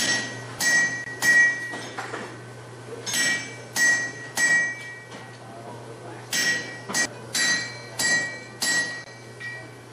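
Blacksmith's peen hammer striking a red-hot iron disc held in tongs on an anvil, each blow ringing with a bright metallic tone. About a dozen blows come in three runs with short pauses between: three, then three, then five or six, the last one lighter.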